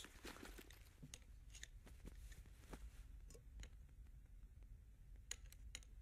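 Near silence of a room, with a few faint clicks and clinks of cutlery and glassware on a dinner table, scattered a second or so apart.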